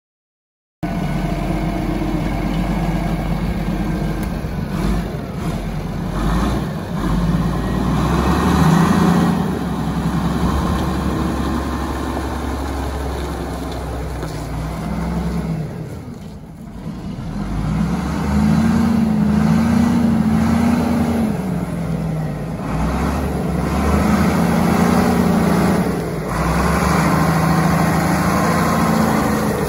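Volvo BM LM 841 wheeled loader's diesel engine running as the machine is driven, its pitch rising and falling with the throttle. It comes in abruptly just under a second in and dips briefly about sixteen seconds in.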